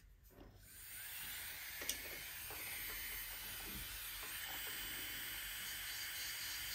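A small electric manicure machine running with a steady hiss, which sets in about a second in, with a few faint ticks.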